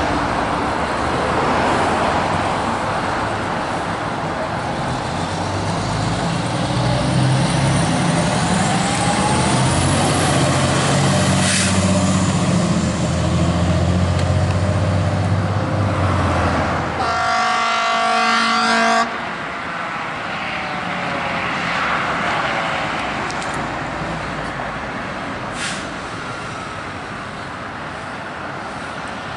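Fire engines responding with sirens wailing over the heavy rumble of a fire engine's engine as it pulls away. About 17 seconds in, a horn blast of several steady tones lasts about two seconds. After that another fire engine's siren wails more quietly.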